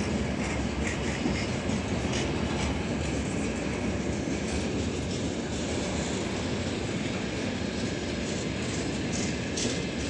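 Freight train of open gondola wagons rolling past, a steady rumble of steel wheels on rail with clickety-clack over the joints and a few brief high-pitched wheel or brake squeals. The train is being braked.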